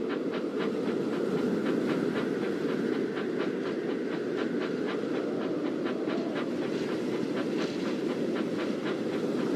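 Hornby Dublo model N2 tank engine and mail coaches running along 00 gauge model track: a steady motor and wheel rumble with evenly spaced clicks, about four a second.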